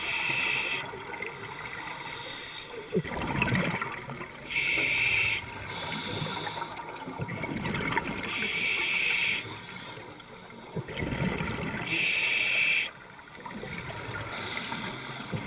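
Scuba diver breathing through a regulator, heard underwater: a hissing inhale about every four seconds, each followed by a gurgling rush of exhaled bubbles.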